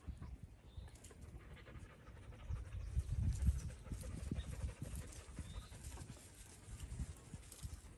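Chickens feeding from a tray of greens: a busy run of pecking taps and low, soft clucking, with one brief high chirp from a small bird a little past the middle.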